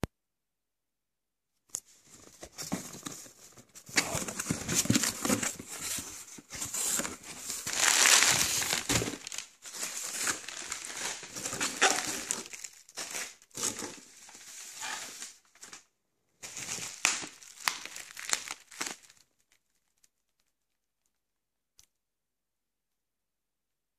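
Hands unpacking a cardboard parcel: plastic wrapping crinkles and crumples and cardboard rustles and scrapes in irregular bursts, loudest around eight seconds in. It dies away about 19 seconds in.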